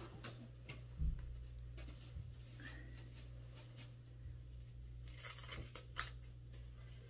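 Green painter's tape being peeled off a freshly painted board in short rips, with a dull thump about a second in and a sharp rip near the end.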